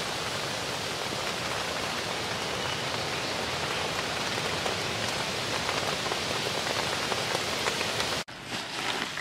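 Steady rain falling on the lake and bankside, an even, dense hiss. It cuts off suddenly near the end, leaving quieter outdoor sound with a few light clicks.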